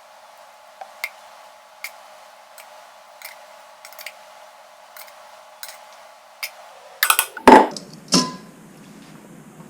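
A kitchen utensil gives light, sharp clicks against cookware as cooked onions are served onto sandwiches. Near the end come a few much louder clanks and clatters.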